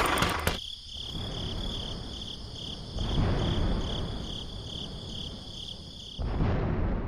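Insects, likely crickets, chirping in a high, evenly pulsing trill at about two to three pulses a second, with a low rumble underneath. The chirping starts abruptly about half a second in and cuts off a little after six seconds, where a louder noisy sound takes over.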